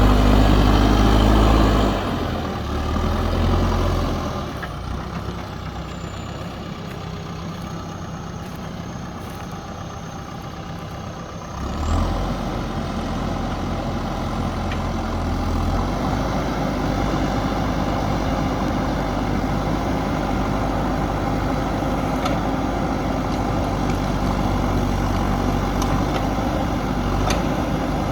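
JCB backhoe loader's diesel engine running. It is loud at first, eases off about two seconds in, and swells briefly again. It runs quieter for several seconds, rises sharply about twelve seconds in, then runs steady.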